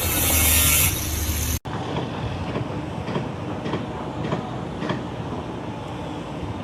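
A loud hiss for about a second and a half, then, after an abrupt cut, the steady rumble of a heavy moving vehicle with faint clicks about once a second.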